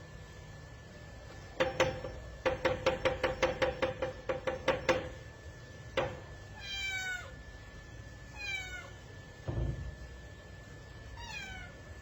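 A cat knocking on a door: a single rap, then a quick run of about a dozen raps, then one more. It then meows three times, each call falling in pitch, with a dull thump between the second and third meows.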